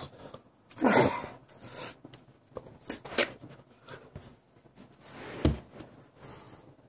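Handling noise from a phone held close to the body: rubbing and rustling against clothing, with several sharp knocks, one about three seconds in and another about five and a half seconds in.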